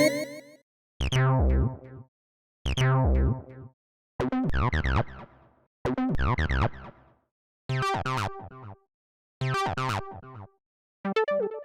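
Synthesized button and interface sound effects played one after another, each about a second long with a short silence between. Each effect is played twice. The first pairs fall in pitch, and the later ones are short stuttering bleeps.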